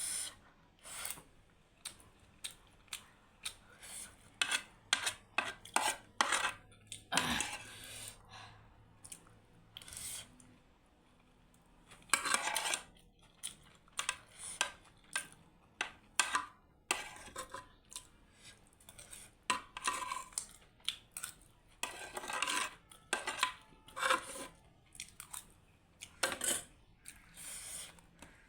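Cutlery clinking and scraping against dishes in many short, irregular knocks, with brief pauses between runs of them.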